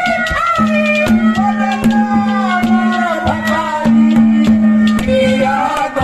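Haryanvi ragni sung by a man into a microphone, backed by hand-drum strokes and a steady held note underneath.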